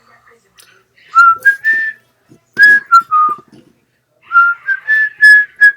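A person whistling a tune in three short phrases of gliding notes, with a few faint clicks between them.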